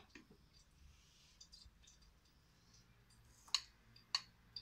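Metal spoon clinking against a small glass bowl while stirring a flour-and-water slurry: a few faint taps, then three sharp clinks in the last second or so.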